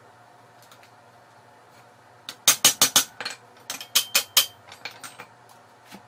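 Sharp metallic clanks of a steel pipe knocking against a steel plate: about a dozen quick knocks, starting a little over two seconds in, some with a short ring.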